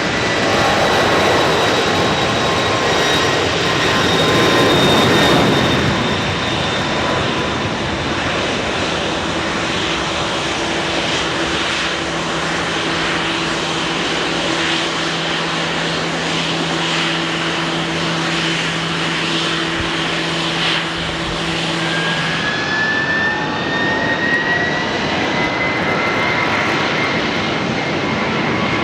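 Jet airliner engines running loud and steady, a rushing noise with whining tones in it. About two-thirds of the way through, a higher whine starts and slowly rises in pitch.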